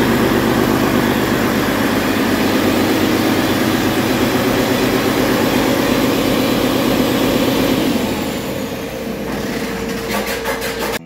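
2016 Paccar MX13 inline six-cylinder diesel engine running steadily on a test stand, running well. The engine sound drops and thins out about eight seconds in, and music starts just before the end.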